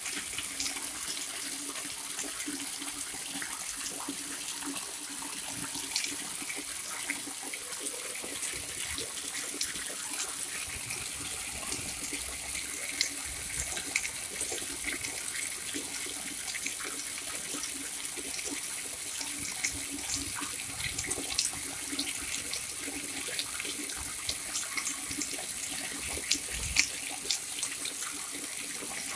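Water pouring steadily from a spout (pancuran) and splashing, with many small scattered splashes and drips, and a faint steady hum underneath.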